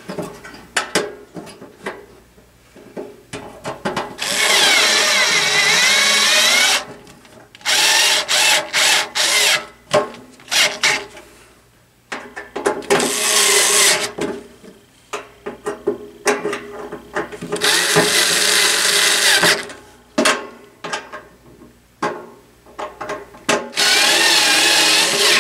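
Electric screwdriver whirring in five runs of one and a half to two and a half seconds each, driving screws into a heater's sheet-metal cabinet. Short clicks and rattles of screws and handling come between the runs.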